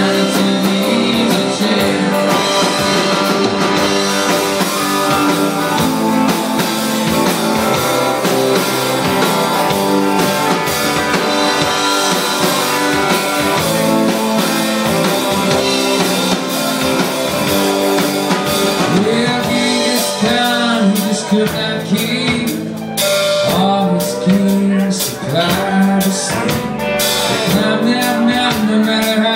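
Live rock band playing: electric guitars, keyboard and drum kit. From about twenty seconds in, sliding, bending notes stand out over the band.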